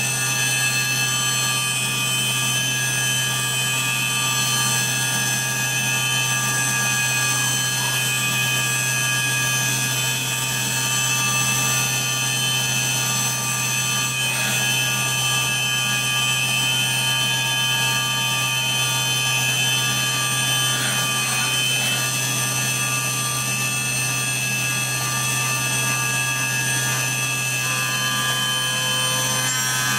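CNC milling machine's spindle running as an end mill cuts a 6061 aluminium bracket under flood coolant: a steady machining whine with several constant high pitches over a low hum.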